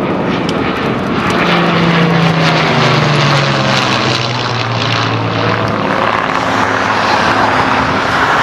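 Piston engine of a single-engine propeller warbird flying past overhead. Its engine note drops in pitch over a few seconds as the aircraft goes by.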